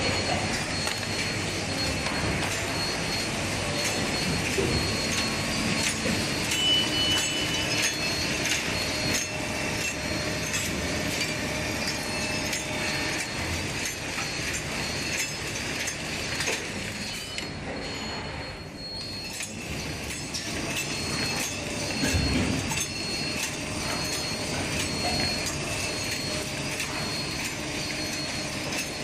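Automatic plastic spoon, fork and knife packing machines running: a steady mechanical clatter full of quick clicks, with a thin high tone over it.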